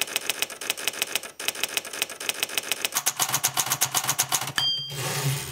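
Rapid typewriter clatter played back through the performance electronics: a fast, even run of sharp key strikes. About three seconds in, a low hum joins and the clatter thickens, and a short high ding sounds near the end.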